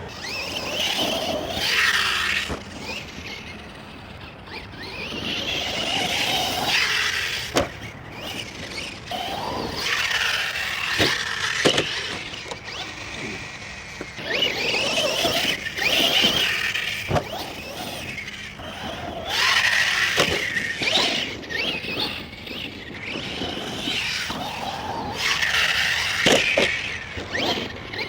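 Arrma Outcast 1/8 stunt truck's electric brushless motor whining up and down in pitch with the throttle in repeated surges, with a few sharp knocks along the way.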